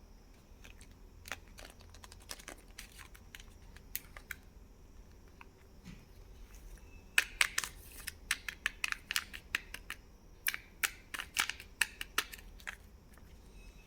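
Candy packaging being handled and opened: sharp crinkles, clicks and snaps of plastic and foil wrappers, sparse at first and coming thick and fast about halfway through.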